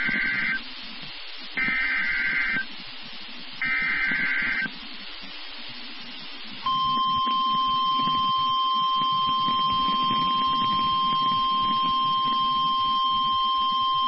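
Emergency Alert System broadcast on NOAA Weather Radio: the last two of three raspy digital data bursts (the coded alert header), each about a second long and two seconds apart, then about seven seconds in the steady single-tone weather radio warning alarm, which holds unbroken and signals a warning-level alert, here a tornado warning. Faint radio hiss fills the gaps between the bursts.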